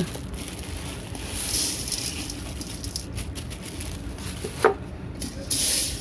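Dry soybeans poured from a plastic bag into an aluminium pot of mixed pulses, the grains running down in a rustling stream with a couple of light knocks. Near the end a hand stirs through the dry grains.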